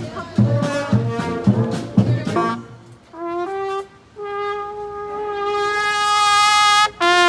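Brass band playing over a steady low beat about twice a second. The band then drops to a single brass horn, which plays two short notes and then one long held note that swells louder, with another short note near the end.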